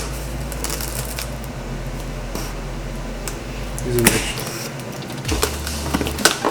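Cardboard box and packaging being opened and handled: rustling and scraping cardboard with scattered taps and clicks, and a louder scrape about four seconds in. A low hum runs underneath.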